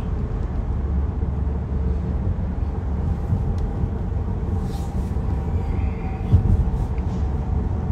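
Steady low rumble with a faint hum, and a single short knock about six and a half seconds in.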